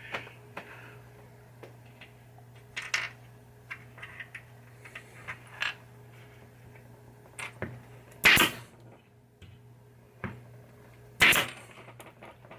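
Pneumatic staple gun firing twice, about three seconds apart, each a sharp crack with a short hiss of air, with lighter clicks and handling noises in between. A steady low hum runs underneath.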